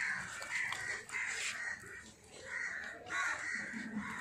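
Crows cawing: a series of short, harsh caws repeating about once a second.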